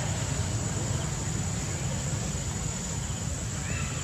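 Steady outdoor background noise: a constant low rumble with a thin, steady high-pitched whine over it, and a faint short chirp near the end.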